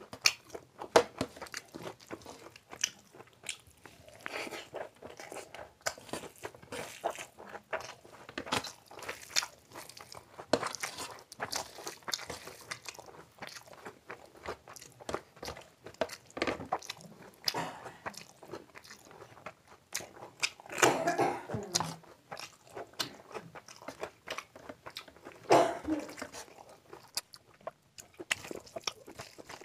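Close-miked eating: a person chewing and biting mouthfuls of fried rice and saucy Manchurian, a steady run of short wet clicks and smacks. Two louder, longer bursts come in the later part.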